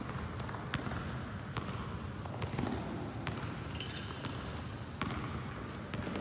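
Sharp clicks and thumps from a smallsword fencing bout, about one a second, over a steady low rumble, with a brief brighter rattle about four seconds in.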